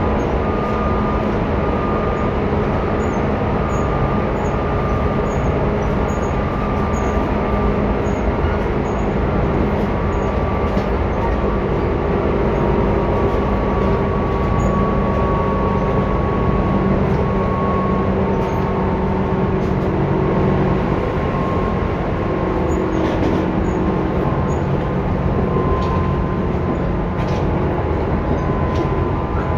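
Tobu 10030 series electric train running steadily between stations, heard from inside the car: continuous rumble of wheels on rail with a motor and gear hum whose tones drift slowly in pitch.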